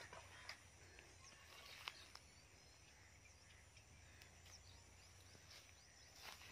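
Near silence: faint outdoor ambience with scattered faint bird chirps and a few soft clicks.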